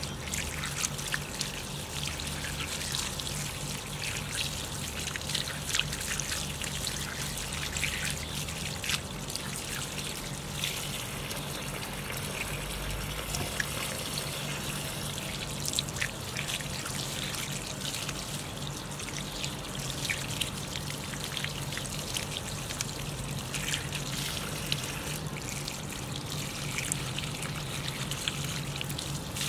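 Water running from a garden hose, splashing over a lamb's head as it is rinsed and rubbed by hand, then pattering onto the leaves and ground below. The water runs steadily, broken by many small splashes.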